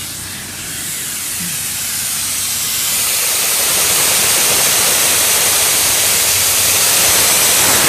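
CNC plasma cutting torch hissing as it cuts into a metal plate. The hiss grows louder over the first few seconds, then holds steady.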